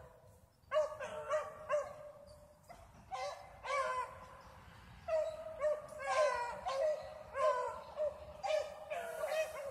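Several dogs barking over and over in short, quick barks that overlap one another, with brief lulls at the start and about three seconds in.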